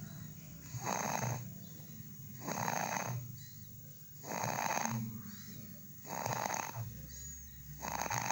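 Snoring during sleep: a noisy snore on each breath, repeating evenly about every second and three-quarters, five times.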